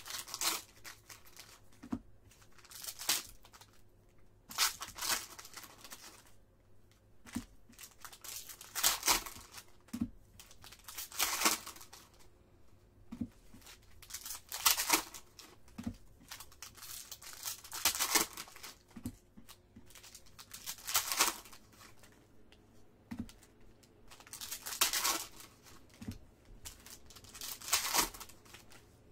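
Shiny foil wrappers of Panini Certified football card packs being torn open and crinkled in the hands: short crackling bursts every second or two.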